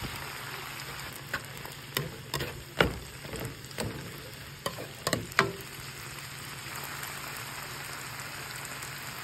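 Stir-fry of chicken, sugar snap peas, broccoli and rice noodles sizzling in a frying pan, with a spatula tossing the food and knocking against the pan a dozen or so times in the first half; then steady sizzling.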